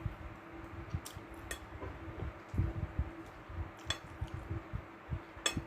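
Metal fork and knife clinking against a plate while eating, with a few sharp separate clinks.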